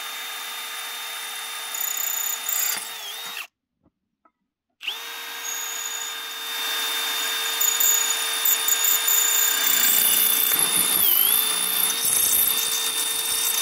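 Cordless drill with a ceramic drill bit boring into a clay roof tile: a steady motor whine that stops about three and a half seconds in, starts again a second later and grows louder as the bit grinds into the tile, its pitch dipping briefly twice under load.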